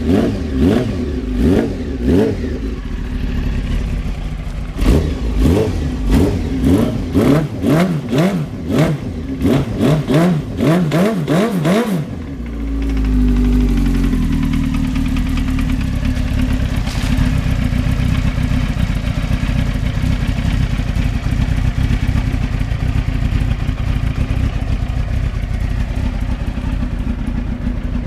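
A 1993 Honda CBR900RR's inline-four engine has its throttle blipped again and again, the revs rising and falling quickly. About twelve seconds in it drops to a steady idle. The engine has a knock that the owner says began after a hard burnout.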